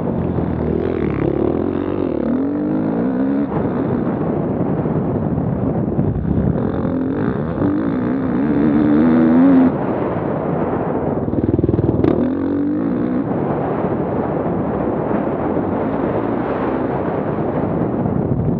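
Enduro dirt bike engine heard from the bike itself, revving up and down as it is ridden over the course, its pitch rising and falling several times with throttle and gear changes.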